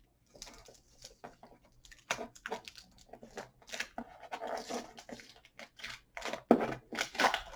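Packing tape and cardboard of a heavily taped shipping box being torn open: a run of irregular short rips and crackles, louder near the end.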